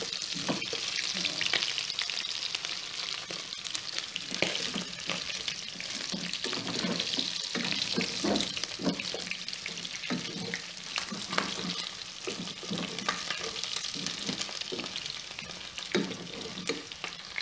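Pork pieces frying in their own rendered fat in a pot, with a steady sizzle. A wooden spoon scrapes and knocks against the pot again and again as the meat is stirred.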